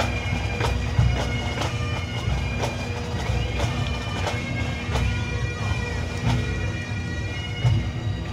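Bagpipes playing, their drones held steady under the tune, with sharp knocks about once a second.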